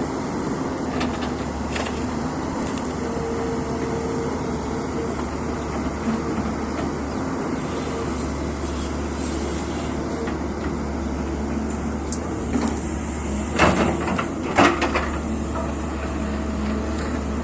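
Heavy excavator's diesel engine running steadily with a low drone. Near the end come two loud knocks about a second apart.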